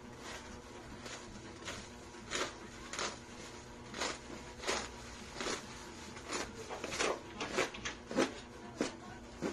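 Utility knife slicing through the plastic wrapping and packing tape of a parcel: a series of short scratchy cuts, coming quicker in the second half.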